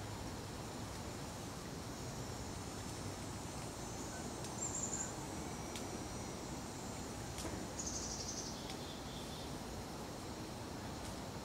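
Woodland ambience: a steady background hiss with a faint, steady high insect chirring, and two brief high-pitched trilled bird calls, about 4.5 s and 8 s in.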